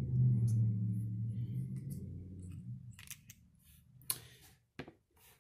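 Light metallic clicks and rubbing of a vape tank's threaded metal sections as they are unscrewed and pulled apart, a handful of short clicks about three to five seconds in. A low hum fades out over the first couple of seconds.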